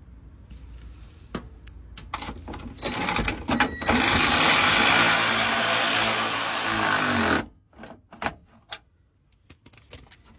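A cordless power wrench runs for about three and a half seconds and stops suddenly, driving home a bolt under the car. Sharp metallic clicks and taps of the socket and fixings come before and after it.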